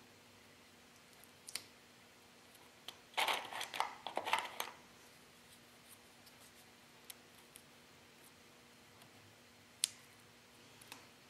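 Scattered light clicks and a short clatter, about three seconds in, of small hard objects being handled, over a faint steady hum.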